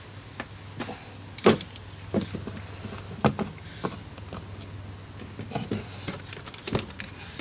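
Hand tools working a cylinder-head stud nut: a ratchet and a torque wrench making scattered metal clicks and clinks, the loudest about a second and a half in, over a steady low hum.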